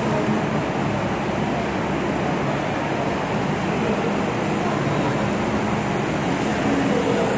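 Robotic TIG welding arc burning steadily while the torch welds an electric iron's soleplate: a continuous even hiss with a low hum underneath.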